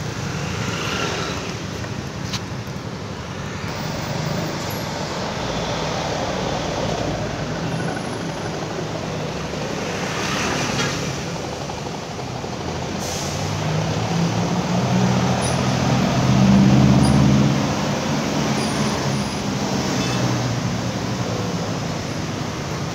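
Busy city street traffic with cars, motorcycles and buses passing. In the second half a heavy vehicle's engine grows louder and passes, loudest about two-thirds of the way through.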